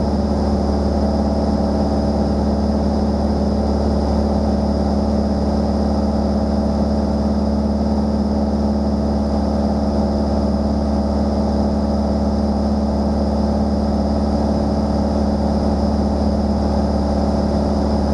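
Light airplane's engine and propeller running steadily in level cruise flight, a constant even drone with no change in pitch.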